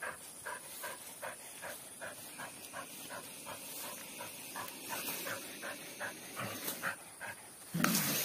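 Dog panting quickly in short, even breaths, about three to four a second. A louder low-pitched sound breaks in near the end.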